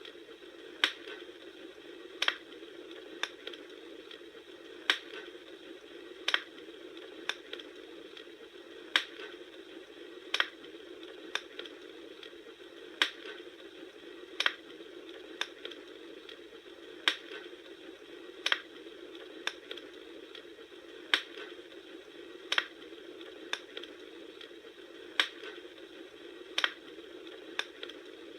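Wood fire crackling: sharp pops and snaps at irregular intervals, about one every one to two seconds, over a steady low hiss.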